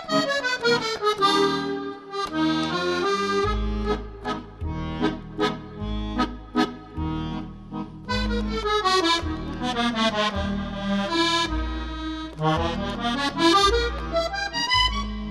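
Background music: a melody in quick runs sweeping down and up over a steady pulse of bass notes.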